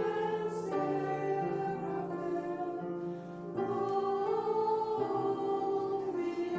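Choir singing slow music in sustained chords, the notes moving to new pitches every second or so.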